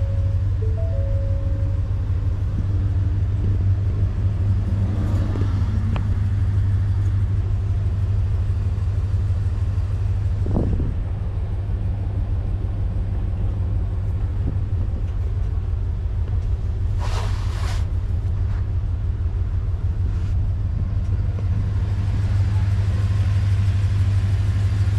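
Ford E-350 cutaway's 7.3 L V8 idling, a steady low rumble heard from inside the cab, with a brief burst of hiss about seventeen seconds in.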